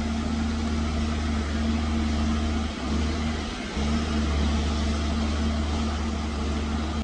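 Diesel engine of heavy earthmoving equipment (bulldozer or dump truck) running steadily with a deep drone. It eases off for about a second near the middle, then picks back up.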